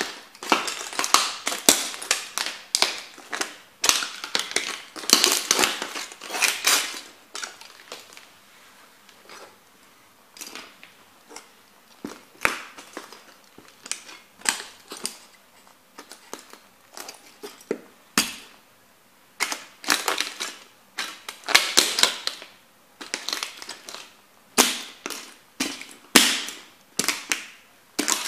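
Shards of a plastic model kit car cracking and crunching under Timberland boots as they stomp and grind them into a board. The cracking is dense for the first several seconds, thins to scattered single snaps in the middle, and turns dense again for the last third.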